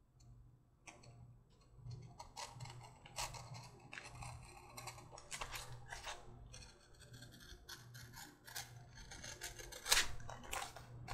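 Leather being trimmed with a hand trim knife through the edges of a glued holster and liner: a run of short, irregular cutting and scraping strokes, over a faint low hum.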